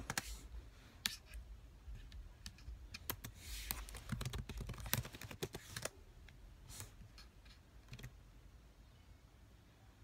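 Fingers tapping and clicking on a device: a run of quick clicks like typing, busiest in the middle, then a few sparse taps near the end.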